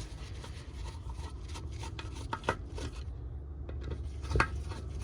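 Light clicks and scrapes of a hand screwdriver and small metal and plastic parts as screws are worked out of a Briggs & Stratton lawn mower carburettor by hand, with one sharper click about four seconds in.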